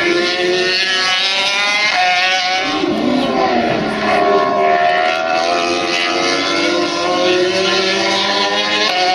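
High-revving racing motorcycle engines on track, the engine note dropping and climbing again several times.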